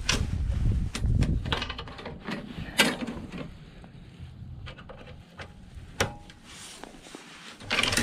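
Hands handling a mower's wire control cable and its fitting, with small clicks and rattles and a sharp click about three seconds in and another about six seconds in, over a low rumble in the first two seconds.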